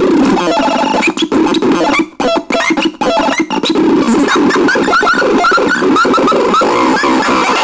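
CASENAX synthesizer playing harsh, noisy electronic tones that stutter and cut in and out in the first few seconds. Then comes a run of short, quick rising chirps over a buzzing drone.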